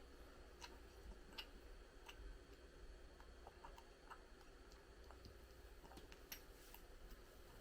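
Near silence: quiet room tone with faint, irregularly spaced small clicks, about ten of them.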